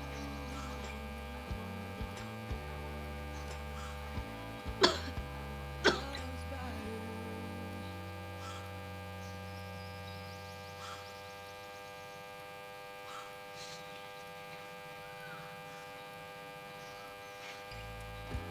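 Two sudden sneezes about a second apart, the first near five seconds in, over a steady electrical hum, with a few faint clicks before them.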